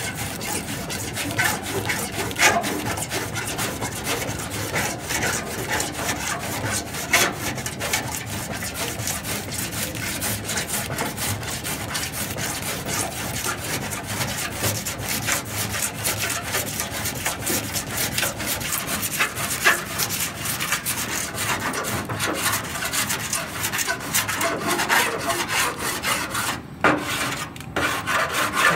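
Body file rasping down lead loaded onto the edge of a steel car bonnet panel, in quick repeated strokes, with a short pause near the end.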